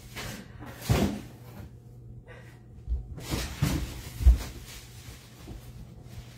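A few knocks and plastic clacks from stacks of card cases being handled and set down, the loudest about four seconds in.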